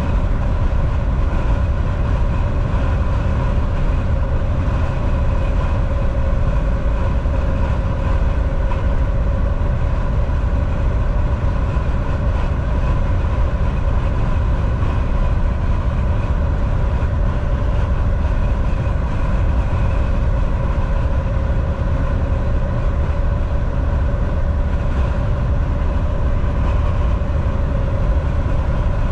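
Semi truck driving at a steady cruising speed: a continuous low engine and road rumble with a steady whine over it.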